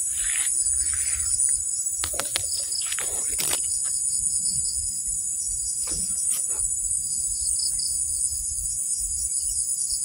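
Steady high-pitched chorus of insects such as crickets, with a low rumble on the microphone and a few brief knocks and rustles about two to three seconds in and again near six seconds.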